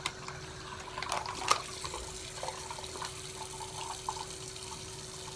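Tap water running into a plastic bottle minnow trap and draining out through holes poked in it, with a couple of light plastic knocks.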